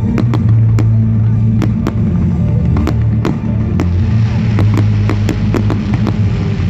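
Fireworks going off in a rapid, irregular string of sharp bangs, with a crackling hiss building from about halfway through, over loud music with a heavy bass.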